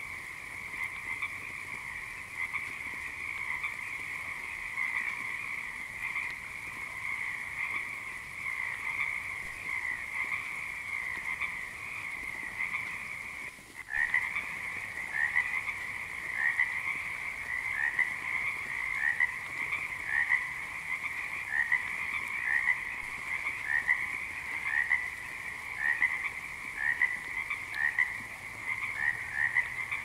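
Chorus of frogs croaking, many calls overlapping. About halfway through it breaks off for a moment. After that, separate croaks stand out, repeating a little more than once a second.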